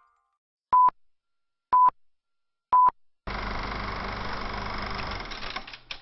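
Three short, identical electronic beeps one second apart, like a countdown, followed by a steady whirring noise that starts about three seconds in and dies away near the end.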